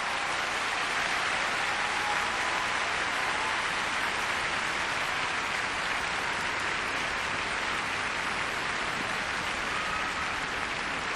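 Large arena crowd applauding steadily at the end of a figure skating long program.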